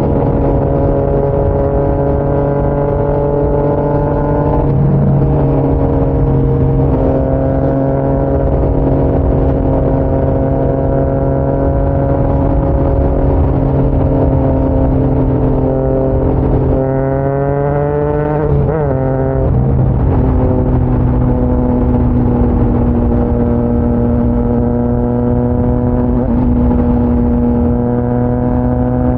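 Triumph Trident 660's inline three-cylinder engine through a GPR Powercone Evo full exhaust, running steadily at cruising speed. About two-thirds of the way through, the engine note rises for a second or so, then drops sharply and settles back to a steady pitch.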